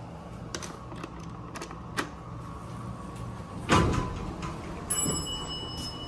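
Footsteps and clicks as someone walks into an elevator cab, with a loud thump about two-thirds of the way through, likely from the elevator's sliding door. Near the end a steady high-pitched tone starts suddenly over a low steady hum.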